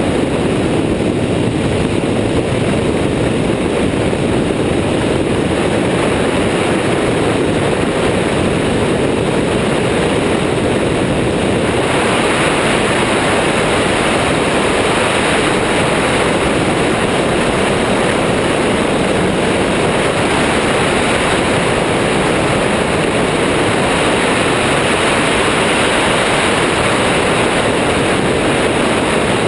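Loud, steady rush of airflow over the wing-mounted camera's microphone on an Airborne XT Tundra weight-shift trike in flight, blended with the drone of its engine and pusher propeller. The rush turns hissier about twelve seconds in.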